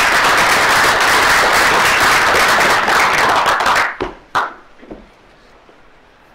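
Audience applauding for about four seconds, breaking off into a few scattered last claps.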